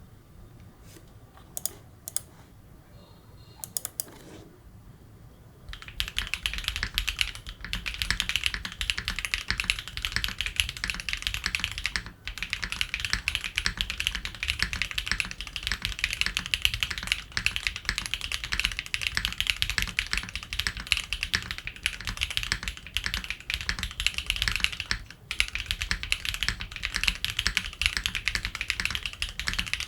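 Wilba.tech Salvation 60% mechanical keyboard with SWK Yang switches on an FR4 plate and PBT keycaps being typed on: a few isolated keystrokes, then continuous fast typing from about six seconds in, broken by brief pauses twice.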